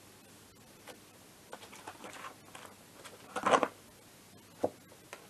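Paper rustling as a folder of documents is handled, with a louder rustle about three and a half seconds in and a sharp click about a second later.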